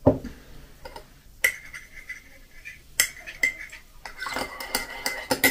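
A ceramic mug set down on the table with a thump, then a metal teaspoon clinking against the inside of the mug: two single taps, then a quick run of stirring clinks near the end.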